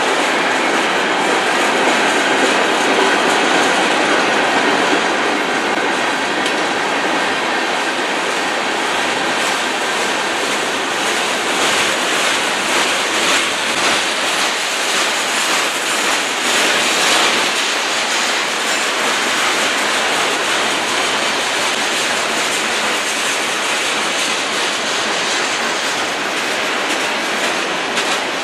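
Cars of a mixed freight train (covered hoppers, tank cars and boxcars) rolling past close by: a steady rumble and clatter of steel wheels on the rails, with a sharper stretch of clatter around the middle.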